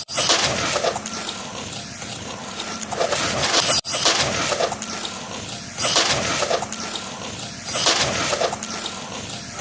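Traxxas Sledge RC monster truck running on pavement: a rushing noise of motor and tyres that surges four times, every two to three seconds, as the truck speeds by, broken by two abrupt cuts.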